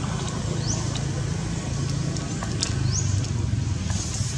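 Outdoor tree-canopy ambience: a steady low rumble with a short, high rising chirp twice, about two seconds apart, and a few faint clicks.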